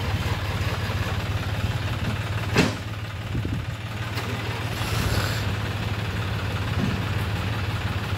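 A John Deere tractor's diesel engine running steadily at low speed, with a single sharp knock about two and a half seconds in.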